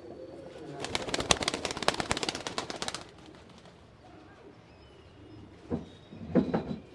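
Pigeon wings flapping hard: a fast run of sharp wing claps lasting about two seconds, with pigeons cooing in the loft around it.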